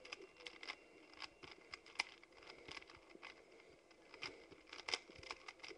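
Rubik's cube being turned by hand: quick, irregular plastic clicks, several a second, faint, with a sharper click about two seconds in and another near five seconds.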